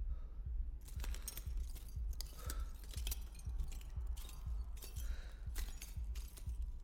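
Cloth rustling and a scatter of small clicks, clinks and rattles of hands handling things, starting about a second in, over a muffled steady bass beat.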